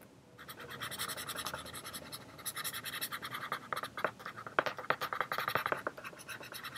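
Black Sharpie marker drawing on an inflated black latex balloon: a run of short scratchy strokes with a few sharper ticks, starting about half a second in.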